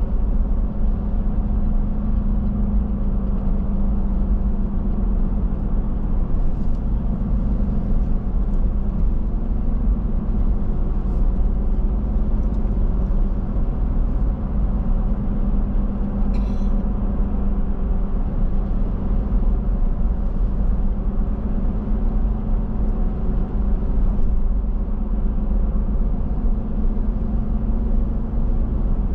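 Car driving at a steady speed: a continuous, steady rumble of engine and road noise.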